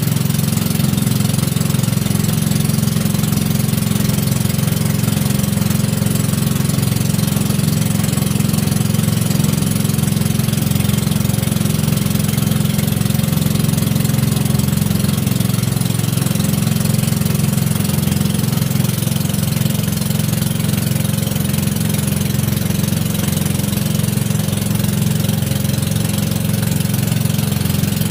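Engine of a motorized outrigger boat (bangka) running at a steady speed, a low unbroken drone with no change in pitch.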